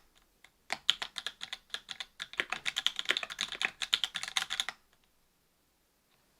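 Fast typing on a Duck Orion V2.5 mechanical keyboard with stock NovelKeys BOX Cream linear switches, an FR-4 plate and GMK keycaps: a dense run of keystroke clacks after a brief pause. The typing stops about three-quarters of the way through.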